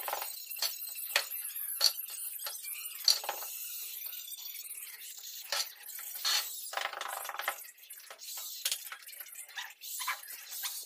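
Straightedge being drawn and sawed across a wet sand-cement floor screed to level it: a run of gritty scrapes and small sharp clicks, with longer scraping strokes about halfway through.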